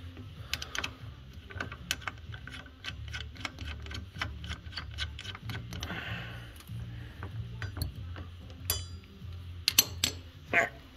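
Irregular metal clicks and clinks of bolts and hand tools as an ice scratcher's mounting bolts are fitted to a snowmobile, with a quick run of clicks about nine seconds in. A steady low hum runs underneath.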